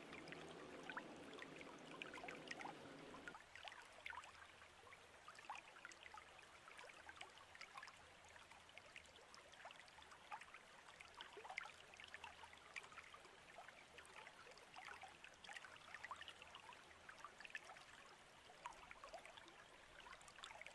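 Near silence: faint room tone with light scattered crackles, and a low hum that stops about three and a half seconds in.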